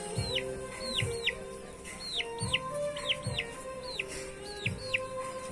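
Chicken calls, short high peeps that fall in pitch, repeated about twice a second, over background music with sustained notes and a low beat.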